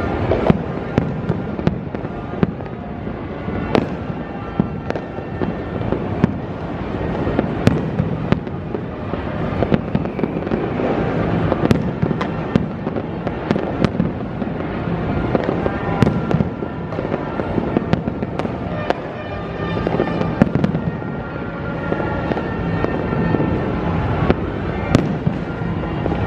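A dense, continuous barrage of New Year's fireworks and firecrackers: many sharp bangs and cracks, one after another, over a steady wash of explosions going off all around.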